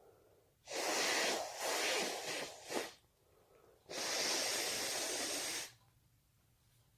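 A person sneezing from allergies: a run of noisy breaths ending in a sharp sneeze nearly three seconds in, then one long, steady breath out lasting nearly two seconds.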